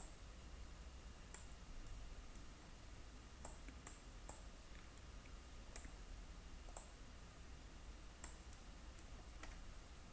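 Faint computer mouse clicks, a dozen or so at irregular intervals, over a low steady hum.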